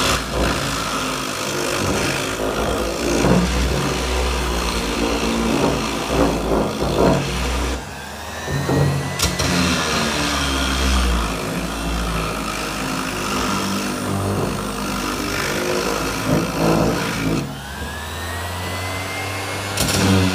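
Bosch GEX 125-1 AE 250-watt random orbit sander running while sanding an MDF shelf, its tone rising and falling as it is worked along the wood, with brief dips in level twice.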